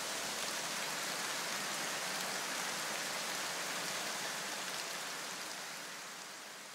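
Steady rain-like hiss from the electronic background track, its bass notes dropping out about half a second in, then fading out over the last couple of seconds.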